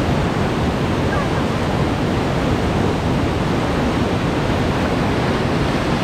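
Whitewater rapid rushing and churning, a loud steady wash of water heard up close from a raft in the rapid.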